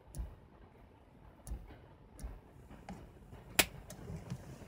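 Handling noise from gloved hands turning a Canon EOS-1 film SLR body with its Power Drive Booster E1 grip: scattered light clicks and soft knocks at uneven spacing, with one sharp, louder click about three and a half seconds in.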